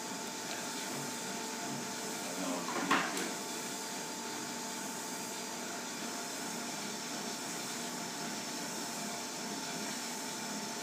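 Steady whirring hum of a Monark Ergomedic 839E cycle ergometer being pedalled hard at a maximal workload, blended with the hum of running lab equipment. A brief louder swish stands out about three seconds in.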